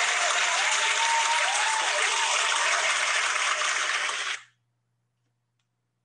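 Recorded applause and cheering, dense clapping with wavering whoops over it, that cuts off abruptly about four seconds in.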